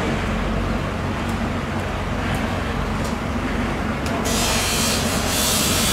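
Steady low mechanical rumble with a few light clicks; about four seconds in, a loud hiss starts and carries on.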